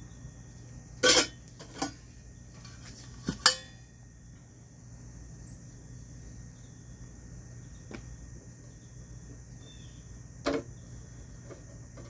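Stainless-steel lid and wire basket of a small ultrasonic cleaner being handled: a few sharp metallic clanks, the loudest about a second in and around three and a half seconds, and one more near the end.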